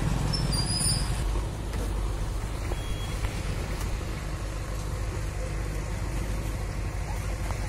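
Steady low rumble of idling vehicle engines, motorcycles and scooters waiting at a closed level crossing.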